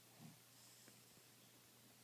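Near silence between snores: a sleeper's faint breathing, with one soft breath sound about a quarter second in, over a low steady hum.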